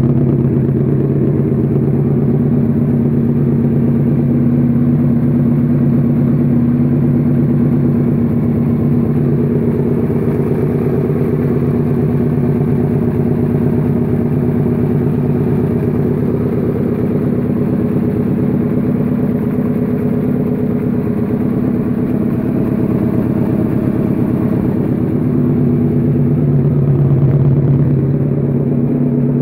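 Freshly rebuilt Suzuki SV650's 90-degree V-twin engine running steadily on its first start-up after the rebuild, with a slight swell in level near the end.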